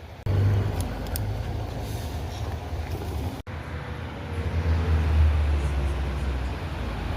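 Steady low rumbling noise, cut off abruptly about three and a half seconds in before resuming.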